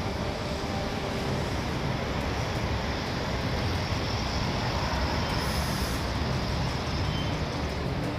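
Steady hiss of road traffic, swelling slightly about halfway through as a vehicle passes.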